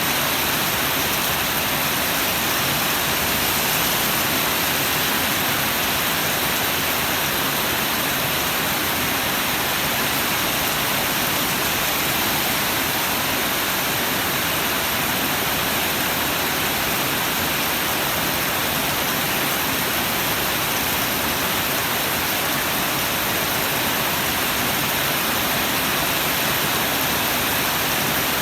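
Heavy storm rain driven by strong wind: a dense, steady hiss that never lets up.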